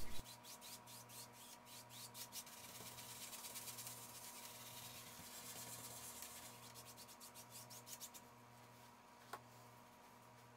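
Faint, rapid scrubbing of a paintbrush on a stretched canvas, several short strokes a second, as wet oil paint is blended to soften the edges. The strokes stop about eight seconds in, and a single small click follows a second later.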